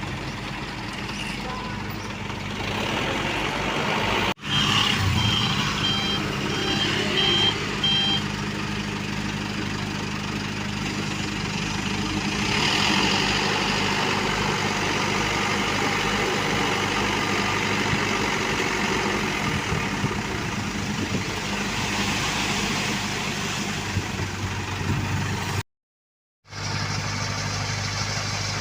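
Diesel engines of road-paving machines running steadily. A reversing alarm beeps about twice a second for a few seconds, about five seconds in.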